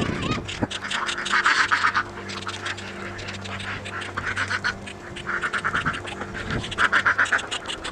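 Domestic ducks quacking in several rapid runs of calls, over a steady low hum.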